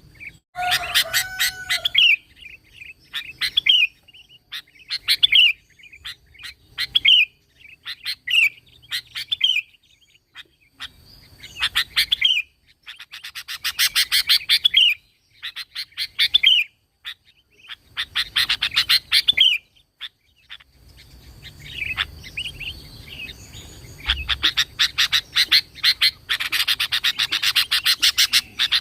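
Sooty-headed bulbul (kutilang) singing over and over: short phrases of rapid chattering notes, each ending in a curved, ringing note, repeated every second or two.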